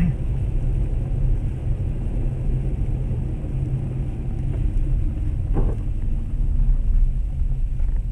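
Steady low rumble of a car's engine and tyres heard from inside the cabin while driving over a snow-packed road, with one brief faint sound about five and a half seconds in.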